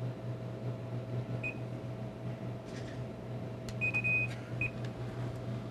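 Vending machine keypad beeping as a selection is keyed in: a short beep, then a longer beep and another short one a couple of seconds later, with faint button clicks, over a steady low machine hum.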